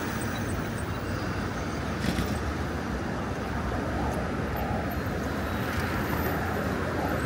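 Steady urban traffic noise: road vehicles passing on city streets.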